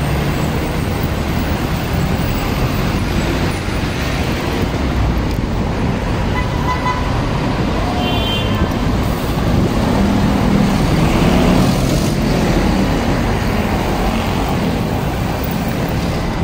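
City road traffic noise: vehicles running past, with a short high-pitched tone about seven to eight seconds in.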